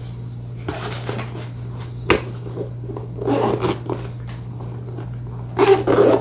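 Handling noise from a drone carrying bag and its packed contents: scattered rustles and small clicks, with a sharp click about two seconds in and two busier bursts of rustling later on.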